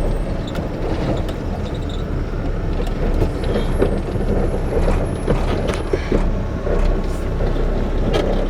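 Iveco Eurocargo truck's diesel engine and road rumble heard from the cab as the truck slows to a stop, a steady low noise.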